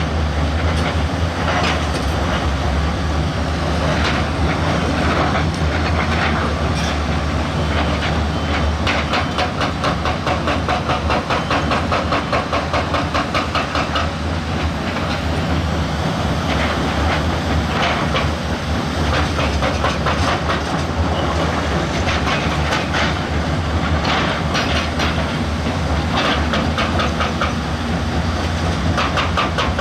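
Heavy diesel earthmoving machine running steadily under load, with rapid metallic clattering and ticking over the low engine sound, thicker from about ten seconds in.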